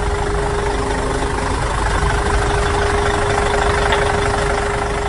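Steady idling engine sound with a constant low rumble and a single held hum running through it.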